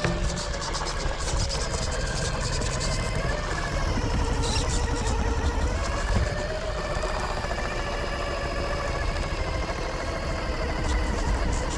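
Electric drive motor and gearbox of a Losi Night Crawler RC rock crawler whining as it crawls over rocks, the pitch sagging and rising with throttle and load. Light ticks and scrapes of the tyres on stone come through now and then.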